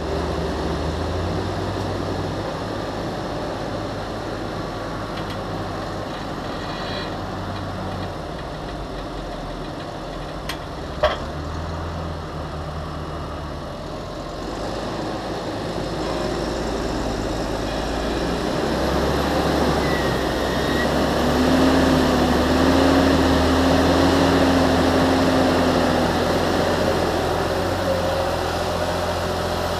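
Large Fendt Vario tractor's diesel engine working steadily while pushing maize silage on the clamp, growing louder in the second half as it comes under load or closer. A single sharp knock about 11 seconds in.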